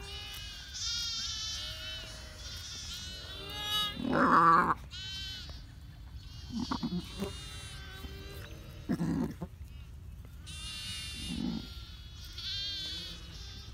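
Sheep bleating across the pasture: many high-pitched lamb bleats overlapping throughout, with a few deeper, louder bleats from adult sheep, the loudest about four seconds in.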